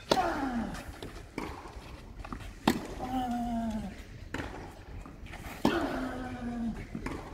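Tennis rally on clay: a serve and four more racket strikes on the ball, about one every one and a half seconds. The near player's three shots each come with a loud grunt; the far player's two hits sound fainter.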